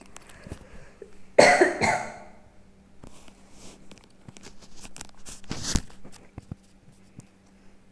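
A person coughs once loudly about a second and a half in. Under it, mutton liver pieces frying in shallow oil give faint scattered crackles and pops.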